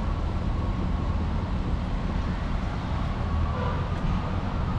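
Steady rush of river water on a whitewater raft, with wind noise on the microphone.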